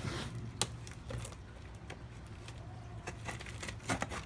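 Handling and opening of a shipping package: a rustle, then scattered sharp clicks and taps, with a small cluster of them near the end, over a steady low hum.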